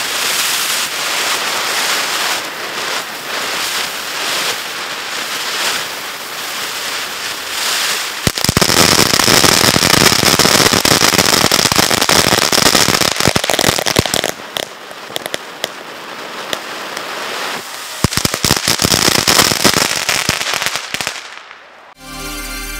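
Ground fountain firework spraying sparks: a steady hiss thick with fast crackling, getting louder about eight seconds in and dying away near the end. A short burst of theme music starts in the last second.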